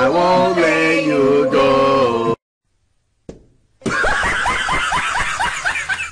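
A man's voice holding drawn-out, sung notes, cut off about two seconds in. After a short silence and a click, quick, high-pitched laughter.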